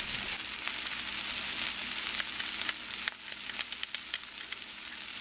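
Diced onions frying in oil in a cast-iron skillet, fried until browned: a steady sizzling hiss with sharp pops and crackles that come thicker in the second half.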